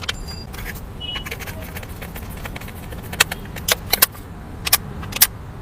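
Scattered sharp clicks and light rattles coming at irregular intervals, over a low steady rumble.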